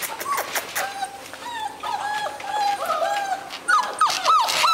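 Several seven-week-old Labrador cross puppies whimpering and whining in short overlapping high calls, louder near the end.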